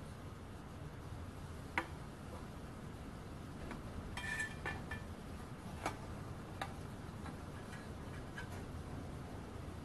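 A few light metal clicks and a short scraping rattle as a small stainless-steel burner tray is handled and slid in under the boiler of a model steam engine; the sharpest click comes about two seconds in, the scrape around four seconds in.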